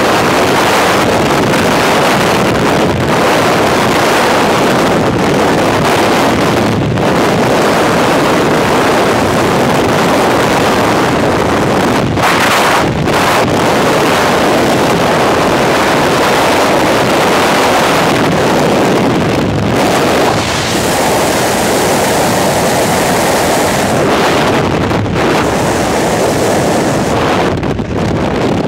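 Freefall airflow rushing over a helmet-mounted camera's microphone: a loud, steady wind noise with no pitch to it, easing only at the very end.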